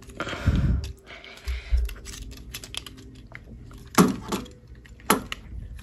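Plastic parts of a Transformers Studio Series Battletrap action figure clicking and rattling as they are twisted and pressed into place during transformation. Muffled bumps about half a second in and just before two seconds, and two sharp clicks about four and five seconds in.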